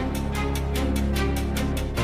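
Background music with a steady, quick percussive beat over sustained bass.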